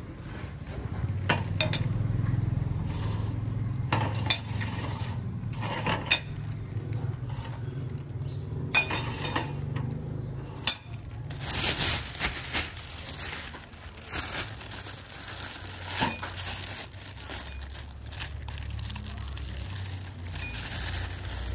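Dishes and cutlery clinking, sharp scattered clicks over a steady low hum.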